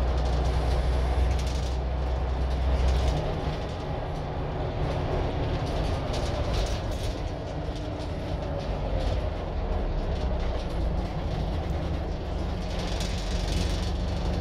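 Scania N94UD OmniDekka double-decker bus under way, heard from the upper deck: the engine and driveline run with a deep drone and the body rattles. The deep drone drops away about three seconds in.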